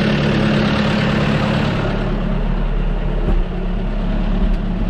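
John Deere 5090R tractor's four-cylinder diesel engine running steadily. About two seconds in the sound turns duller as it is heard from inside the cab.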